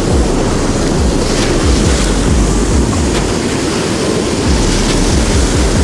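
Ocean surf washing on the beach, with wind buffeting the microphone in heavy low rumbles.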